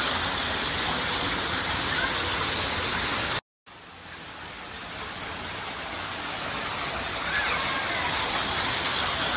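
Steady hiss of falling water. It cuts out briefly about three and a half seconds in, then fades back up.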